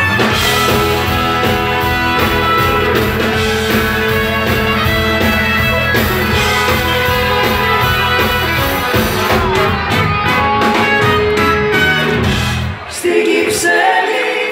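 Live pop-rock band playing, with drums and trombones, while a woman sings into a microphone. Near the end the band drops out, leaving thinner sound without the bass.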